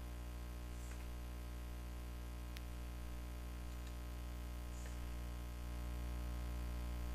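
Steady low electrical hum, a little louder near the end, with a few faint clicks.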